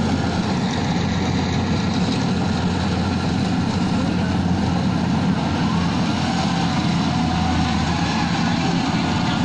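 Rice combine harvester's engine running steadily while it harvests, a steady low hum.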